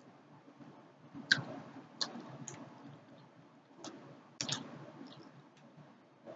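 Eating sounds of a bite of fried skin-on tilapia being chewed: about half a dozen sharp, irregular mouth clicks and smacks, the loudest about a second in and a close pair a little past the middle.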